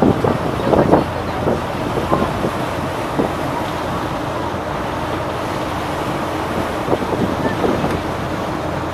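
Steady rushing noise of wind on the microphone aboard a passenger motor ship under way, over the running of the ship and the water beneath. A few gusts buffet the microphone in the first second and again near the end.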